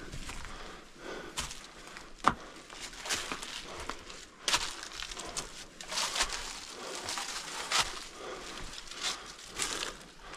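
A person breathing hard in uneven, noisy breaths, mixed with crunching and scuffing footing on snow and ice, and one sharp knock about two seconds in.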